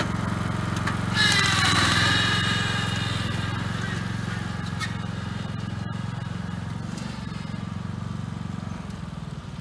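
Riding lawn mower engine running steadily under load as it tows a trailer, slowly fading as it moves away. About a second in, a loud high-pitched sound rises over it for about a second.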